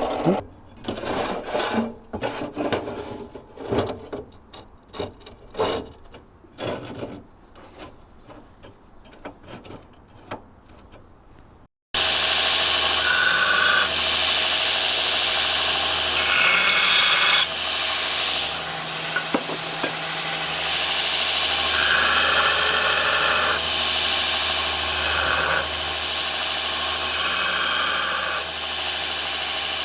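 Irregular scraping strokes on steel that grow fainter, then after an abrupt break a power tool runs steadily on steel stock with a low hum underneath, the metal-shaping noise rising and falling as the work is pressed against it.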